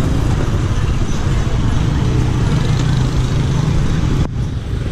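Street traffic of motor scooters and motorbikes running and passing close by, with people's voices mixed in. The higher-pitched part of the noise drops away abruptly about four seconds in.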